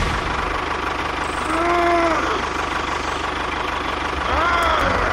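A small engine running steadily at idle with a fast, even low pulsing. Twice, a short pitched sound rises and then falls over it.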